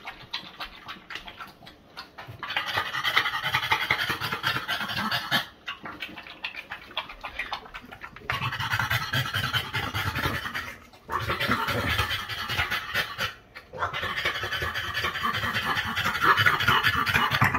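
A flat-faced (brachycephalic) dog panting hard and noisily in four long stretches with short breaks between them, its head down at a raised bowl, lapping. This is heavy panting after a walk.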